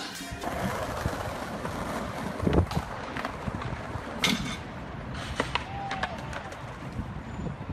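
Skateboard rolling and clattering on stone paving, with several sharp knocks and smacks as the rider loses his footing and falls; the loudest smack comes about four seconds in. A steady city-street hum runs underneath.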